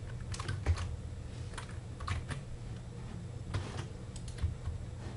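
Typing on a computer keyboard: scattered single keystrokes and short runs, irregular with pauses between them, over a low steady hum.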